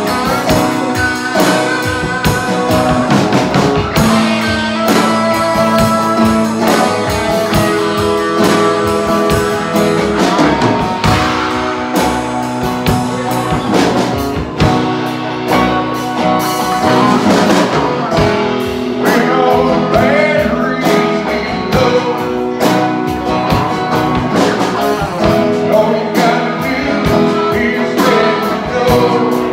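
Live band music: electric guitar and strummed acoustic guitar playing over a drum kit.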